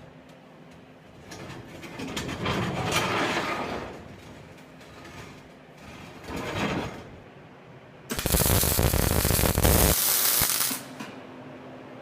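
Electric welding arc crackling in short bursts, the longest and loudest near the end lasting about two to three seconds, as small spot welds are laid on steel.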